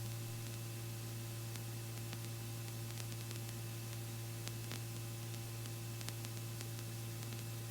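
Steady low electrical hum with faint hiss on a helicopter's intercom and radio feed, with no voices and a few faint ticks.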